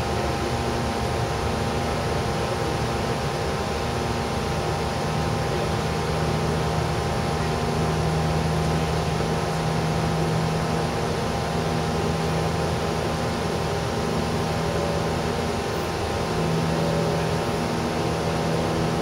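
Steady mechanical hum over an even hiss, with several constant tones, one low and a group higher up, holding level throughout.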